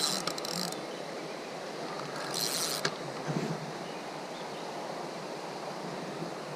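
Steady rush of flowing creek water, with two brief hissing bursts, one at the start and one about two and a half seconds in.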